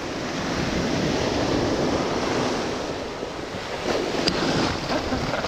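Sea waves washing onto the shore, the surf swelling about a second in and again near the end, with wind buffeting the microphone.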